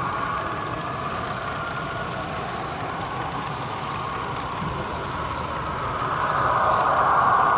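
Model railway train running past on its track: a steady rolling hum of wheels and motor that grows louder from about six seconds in.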